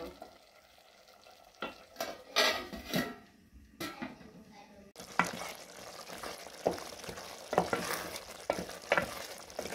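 An aluminium pot lid clatters a few times as it is handled. Then a tomato and onion sauce sizzles in the pot while a wooden spoon stirs it, knocking now and then against the sides.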